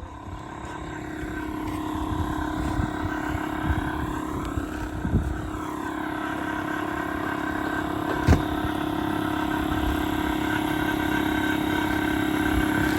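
A machine running steadily with a constant hum, growing gradually louder, with one sharp knock about eight seconds in.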